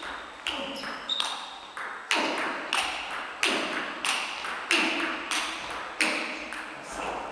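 Table tennis rally: the ball clicks sharply off the bats and the table about every two-thirds of a second, some hits coming in quick pairs. Each click rings on in the echo of a large hall.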